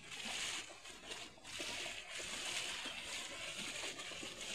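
Water splashing and sloshing as a person wades quickly through thigh-deep water, his legs kicking up spray with each stride.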